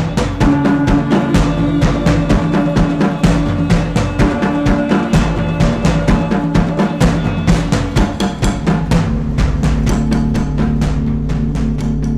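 Music: a fast, even drum beat over held low tones. The drums thin out and stop near the end, leaving the sustained drone.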